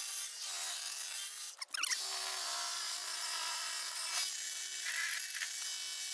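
DeWalt 20 V cordless pressure washer running, its pump motor whining steadily under the hiss of the water jet from the turbo tip. The sound breaks off briefly just under two seconds in, then carries on steadily.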